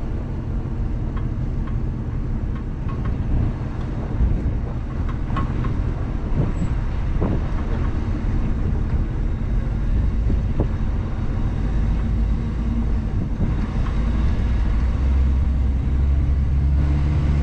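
Jeep Grand Cherokee running at low revs while crawling over rock and sand, with tyres crunching and occasional short knocks. The engine's rumble grows louder near the end.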